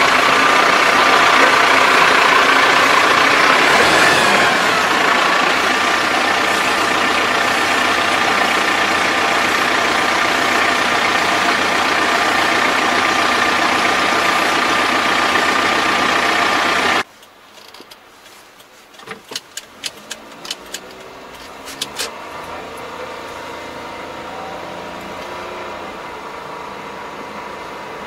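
Tractor engine running steadily behind its raised rotary tiller, loud, with a steady whine over the engine noise. About two-thirds of the way through the sound cuts off abruptly, leaving a faint hum with a handful of sharp clicks.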